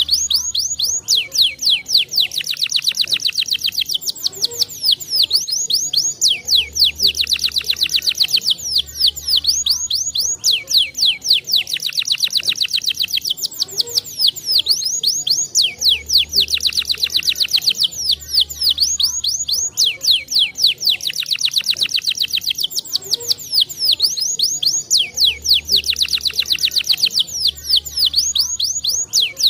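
Domestic canary singing long, fast trills of rapidly repeated high notes. The song phrases recur about every nine seconds, as in a looped training recording.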